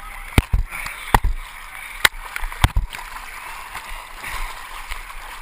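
Water sloshing and splashing right at a handheld GoPro, with several sharp knocks in the first three seconds.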